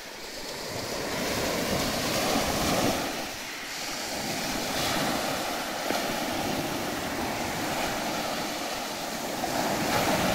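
Small Baltic Sea waves breaking and washing up a sandy shore, the surf swelling and easing every few seconds.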